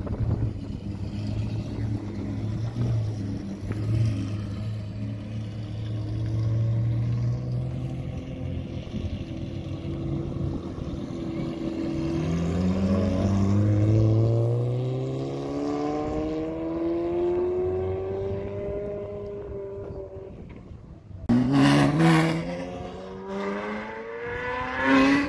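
Supercar engines: a deep steady idle, then a car pulling away with its engine note climbing steadily for several seconds. Near the end come two sharp, loud revs.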